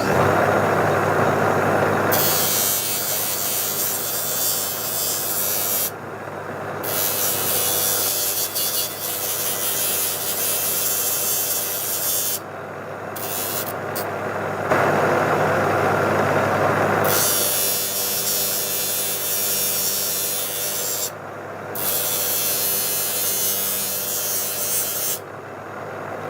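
A small electric power tool's motor running steadily with a hum, with a loud hissing, scraping layer on top that drops out briefly about four times.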